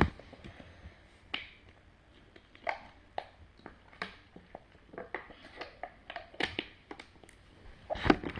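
Chewing gummy candy: irregular small wet clicks and squishes from the mouth, with a louder burst near the end.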